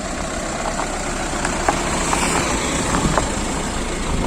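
Vehicle engine and road noise while driving, steady with a few faint clicks.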